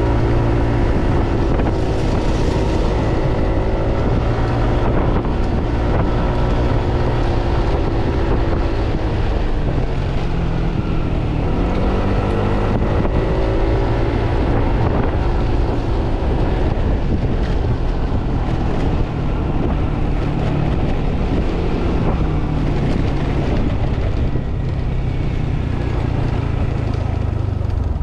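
Yamaha NMAX scooter's single-cylinder four-stroke engine running while riding, its pitch rising and falling with the throttle, under steady wind noise on the microphone.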